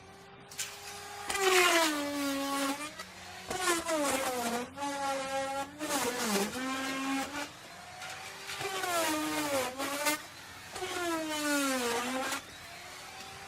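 Electric wood router running, its motor whine dropping in pitch each time the bit cuts into the wood and climbing back as the load comes off, about five times.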